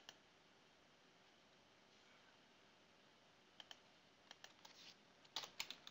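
Near silence with scattered faint clicks of a computer mouse and keyboard, a few single clicks and then a quick cluster near the end.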